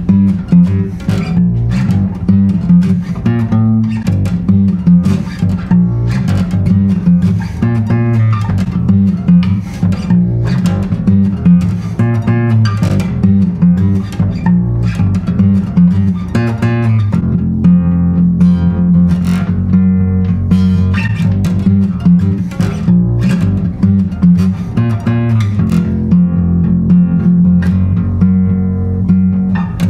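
Guild B-140 acoustic bass guitar played fingerstyle: a solo bass line of plucked low notes, running without a break.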